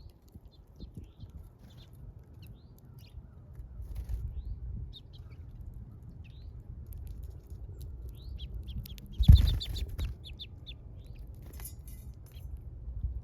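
Small birds chirping at a feeder: many short, high chirps scattered throughout, over a low rumble. A loud rustling burst comes about nine seconds in.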